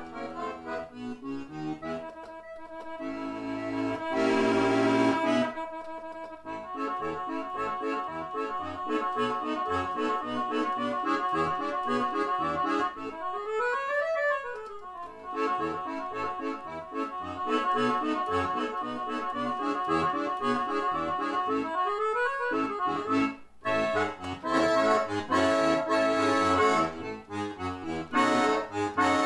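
Roland digital accordion playing a ragtime-style shuffle, with the right-hand keyboard melody over rhythmic left-hand bass buttons. Two short swoops in pitch, rising then falling, come about halfway and about three-quarters of the way through.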